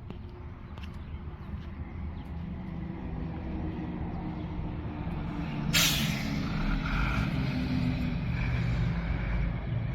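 A vehicle engine running and growing louder, with a sudden short, sharp hiss about six seconds in.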